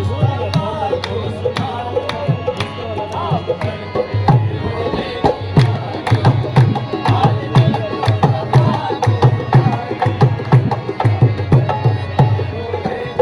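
Live qawwali: tabla or hand drum playing a fast, steady beat of deep thumps and sharp slaps under a wavering sung melody.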